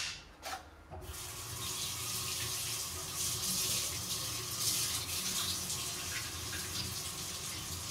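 Kitchen tap turned on about a second in, running steadily into a stainless-steel sink.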